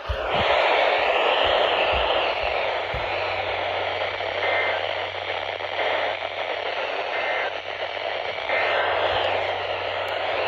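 Weather radio receiver tuned to the KWO39 NOAA Weather Radio transmitter, giving out a loud, even static hiss in place of the broadcast, with a steady low hum joining about three seconds in: the station's signal is failing.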